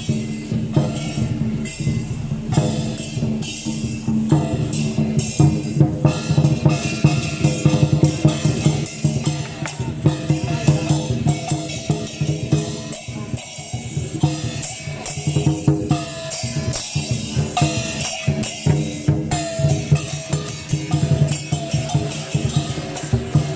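Music led by drums and other percussion, beating steadily, with repeated ringing strokes whose pitch bends.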